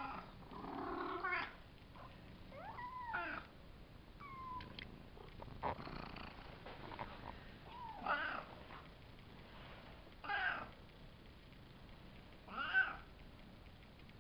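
Five-week-old Savannah kittens meowing in play, about six short high mews and squeals spread through, one with a rise and fall in pitch near 3 seconds, and the loudest near the end.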